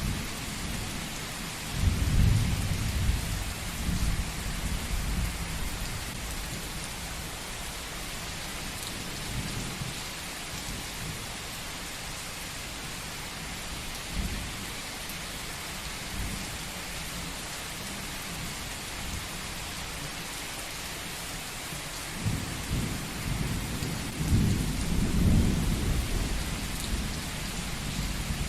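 Steady rain with thunder rumbling twice: a roll about two seconds in and a longer one near the end.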